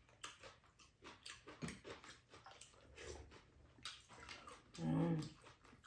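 Eating at the table: spoons clicking and scraping against a shared pan and bowls, with soft mouth sounds of eating, and one short voiced hum about five seconds in.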